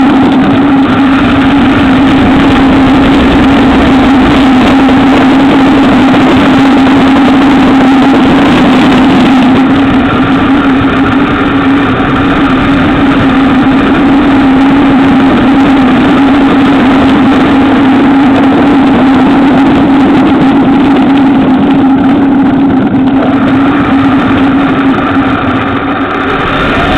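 Electric motor and propeller of a radio-controlled FMS Cessna 182 model, heard close up from a camera on its nose, running as a loud steady drone while the model taxis. The sound dips a little near the end, then comes back up.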